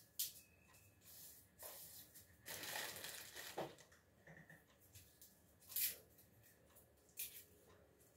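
Dry garlic skins crackling and rustling as cloves are peeled by hand: faint, short crisp crackles, with a longer rustle about three seconds in.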